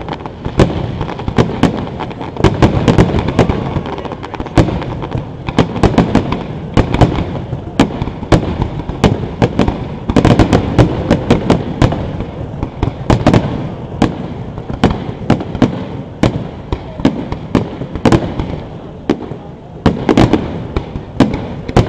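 Fireworks display seen close to the launch site: aerial shells firing and bursting in rapid, overlapping bangs, with no pause. The barrage thickens a few times.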